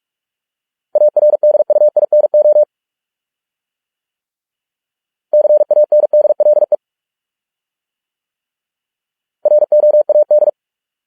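Morse code sent as a single steady beep tone at 45 words per minute: three words, each a quick run of dots and dashes lasting a second or so, about four seconds apart with silence between.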